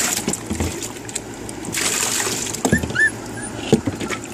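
Hunting-dog puppy whining briefly, two short high whimpers about three seconds in, while bath water sloshes and splashes around it in a plastic cooler.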